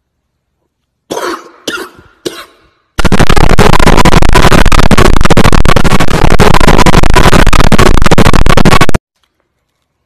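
A man coughs three times in quick succession, hard and short, after drawing smoke from a lit Pringles chip. Then comes a blast of harshly distorted noise lasting about six seconds at near full volume, which cuts off abruptly.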